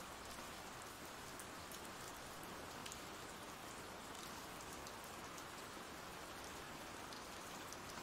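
Faint, steady rain ambience: an even hiss of falling rain with scattered small drop ticks.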